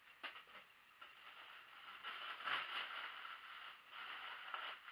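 Plastic packing wrap rustling as it is pulled off a beer bottle from a cardboard box, with one light knock just after the start.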